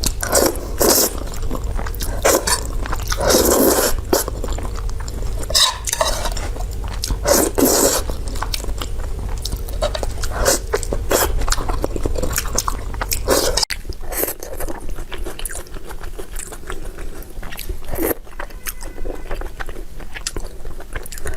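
Close-miked chewing and biting, with irregular wet crunches and smacks. The sound drops slightly and changes character about 14 s in, at an edit.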